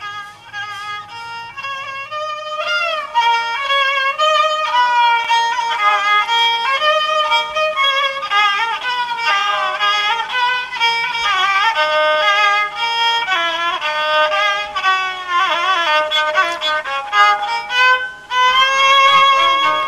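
Toyohon, the Shan bowed fiddle with a metal horn bell, playing a solo melody with sliding notes and vibrato; it gets louder about two seconds in.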